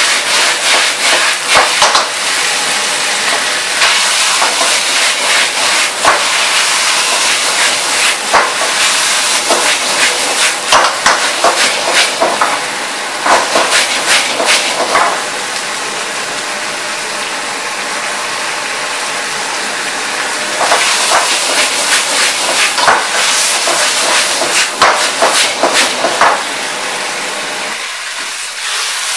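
Fresh ho fun noodles stir-frying in a wok over a gas wok burner at full heat: a loud steady hissing and sizzling, with a metal ladle scraping and clanking against the wok many times. The clanks thin out for a few seconds midway, then pick up again.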